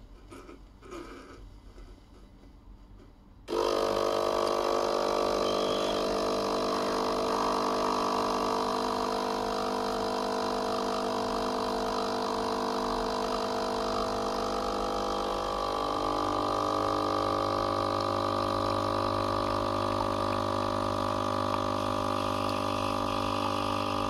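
The 19-bar pump of a Noon East espresso machine switches on about three and a half seconds in and runs with a steady hum while it pushes water through the ground coffee, pulling an espresso shot into the cup. Its note changes slightly about halfway through.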